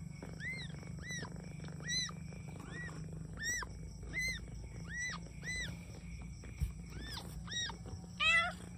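Newborn kittens mewing: short, high-pitched cries that rise and fall, repeated about every half second. A louder, lower-pitched cry comes near the end.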